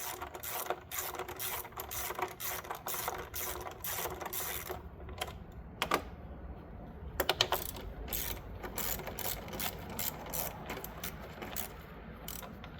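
Socket ratchet clicking in quick runs as the engine cover's 10 mm bolts are backed out, with a couple of louder metallic knocks about six and seven seconds in.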